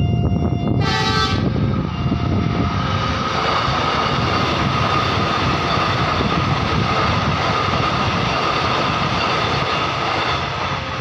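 Train horn sounds once, briefly, about a second in, then a train passes over the level crossing in a loud, steady rush of wheels on rails with a steady whine through it. The crossing's warning siren tones sound at the start and come back near the end.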